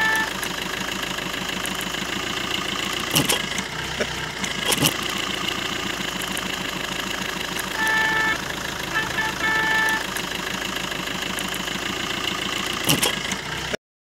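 Suzuki hatchback's engine idling steadily, with a few short high beeps and a couple of sharp clicks.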